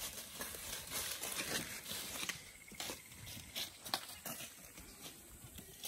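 Dry fallen leaves crunching and rustling under footsteps, in irregular crackles that are busiest in the first couple of seconds and sparser after.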